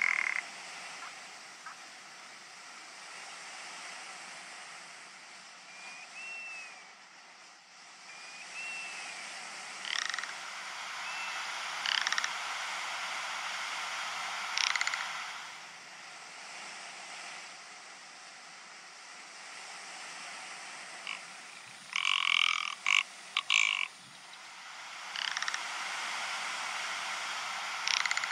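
Rock ptarmigan giving dry, croaking rattle calls in short rasping bursts, the loudest run of them about three-quarters of the way in, over a steady hiss. Two faint thin rising-and-falling whistles sound about six and nine seconds in.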